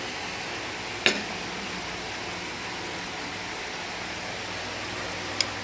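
A steel ladle knocks sharply against the dish about a second in and clinks lightly again near the end, over a steady background hiss.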